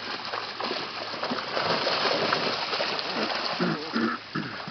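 Water splashing and churning during a koi pond harvest, growing louder about a second and a half in. Faint voices come in near the end.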